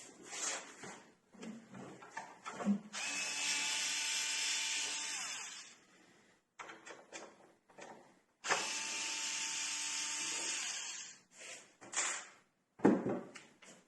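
Xiaomi Mijia cordless electric screwdriver running in two bursts of about three seconds each, turning screws in a door lock. The first burst winds down at its end. Small clicks and knocks of handling come between the bursts, with a sharp knock near the end.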